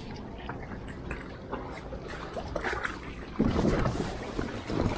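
Gear being handled in an inflatable dinghy on the water: scattered light knocks and clicks over water lapping and wind on the microphone, with a louder rush of noise about three and a half seconds in.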